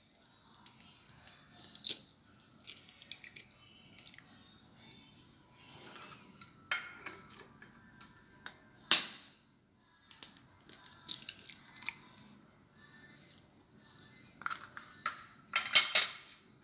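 Eggs being cracked on the rim of a bowl: a few sharp taps spread out, with small clinks and rattles between them. Near the end comes a quick run of clinking as a utensil starts beating the eggs in the bowl.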